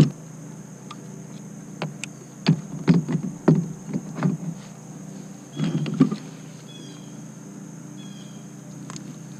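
Irregular hollow knocks and thumps on a plastic kayak's hull and gear as a caught largemouth bass is handled aboard. They come in a cluster about two to four seconds in and again around six seconds. A bird chirps briefly a few times near the end.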